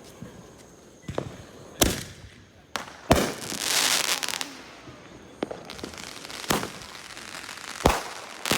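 Fireworks going off: sharp bangs about a second apart, the loudest about three seconds in, followed by roughly a second of crackling.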